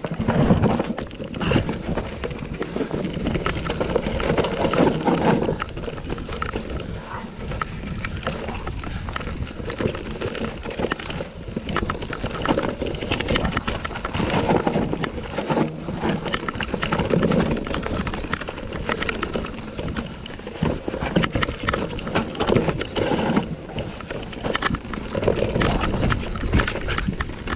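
Enduro mountain bike ridden downhill on rough dirt trail: knobby tyres rolling and skidding over dirt, roots and rocks, with the bike clattering and rattling over the bumps in a continuous stream of short knocks, and wind noise on the microphone.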